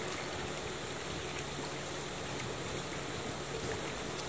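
Steady harbor ambience: a soft, even wash of water lapping around moored boats.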